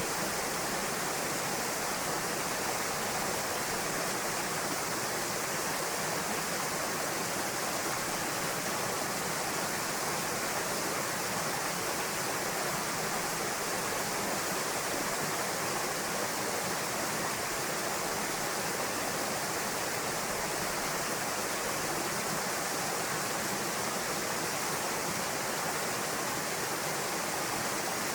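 Waterfall pouring into a pool, a steady, even rush of falling water.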